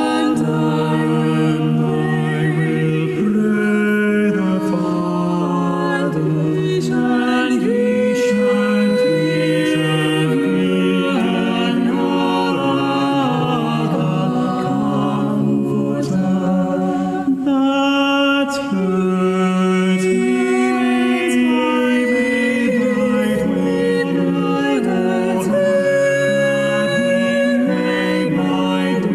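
A choir singing a slow hymn in several parts, with long held notes.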